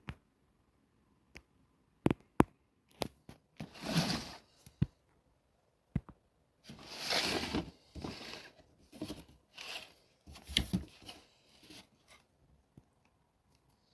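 Packaging being handled and opened: sharp clicks and knocks mixed with several short bursts of tearing and rustling.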